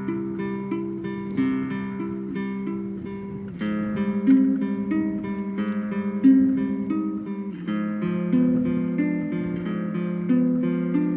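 Solo acoustic guitar picking arpeggiated chords note by note in a repeating pattern, changing chord about every four seconds.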